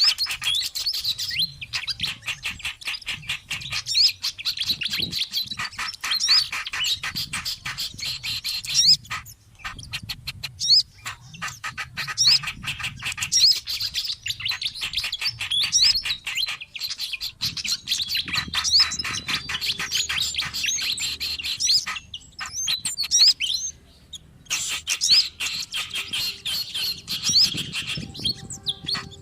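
Bird-lure recording of songbirds calling: dense, rapid high-pitched chirps and chattering trills, broken by two short pauses, about nine seconds in and again near twenty-three seconds.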